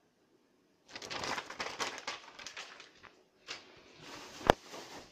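Protective plastic wrapping on a flat-screen TV rustling and crinkling in bursts, starting about a second in, as the set is pulled out of it, with one sharp knock about four and a half seconds in.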